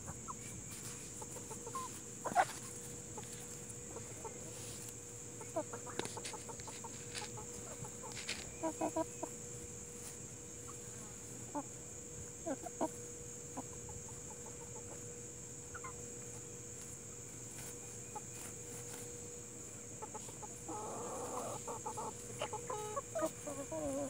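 Barred Plymouth Rock and Hamburg hens clucking softly and now and then while they forage, with a denser run of clucks near the end.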